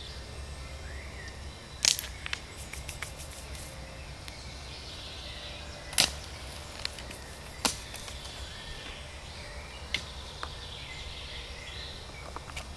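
Scattered sharp clicks and knocks at irregular intervals, the loudest about two seconds in, followed by a quick run of smaller ticks, and another at six seconds. Faint chirps and a low steady rumble run underneath.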